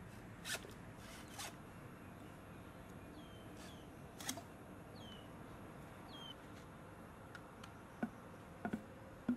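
Hacksaw cutting through a green bamboo pole, a few short rasping strokes. Near the end come several short knocks as the cut bamboo sections are handled, with a few faint high chirps in between.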